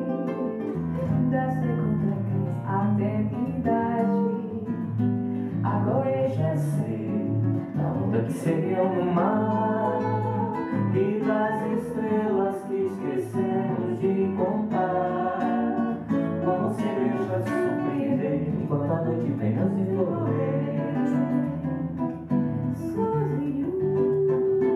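Live bossa nova played on two acoustic guitars, with a woman singing the melody.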